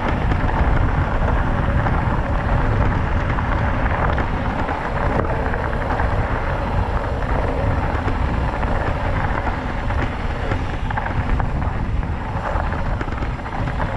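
Wind buffeting the microphone with a low rumble, steady and loud, as heard while riding a mountain bike along a rough track.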